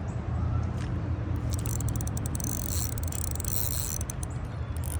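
Ultralight spinning reel clicking rapidly for about two and a half seconds as a bass is hooked and fought, over a steady low rumble.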